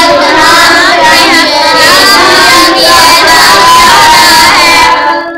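A high-pitched solo voice sings a line of an Urdu naat, a devotional poem praising the Prophet, with long held and bending notes. It fades out near the end.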